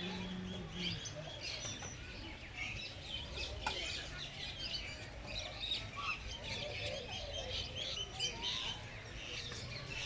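Many small birds chirping together in a dense, continuous chorus of short, high chirps and twitters.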